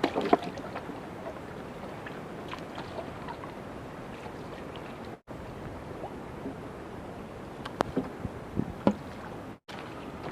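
Water splashing and sloshing around a small boat, with scattered knocks and clicks over a steady hiss; a cluster of knocks comes near the start and another near the end. The sound cuts out for a split second twice.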